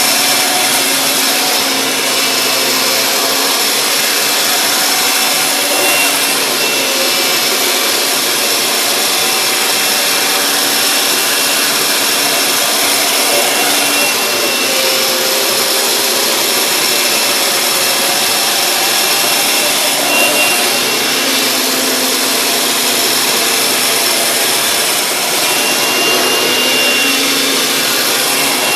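Kirby Sentria II upright vacuum cleaner running steadily at full power, vacuuming up leftover powder.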